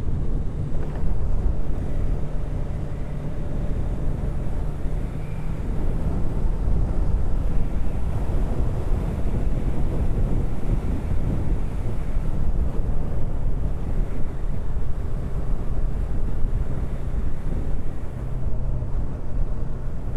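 Yamaha R3's parallel-twin engine running steadily while riding, mostly covered by heavy wind buffeting on the helmet microphone.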